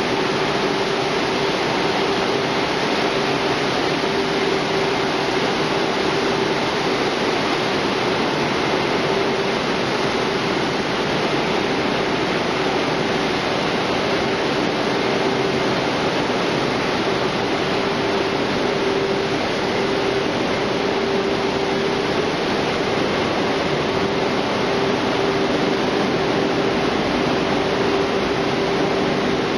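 Processing machinery of a french fries production line running: a steady rushing noise with a constant mid-pitched hum.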